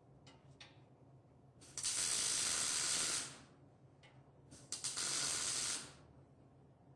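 Two MIG tack welds on steel, each arc running steadily for about a second and a half, with a few short clicks just before each.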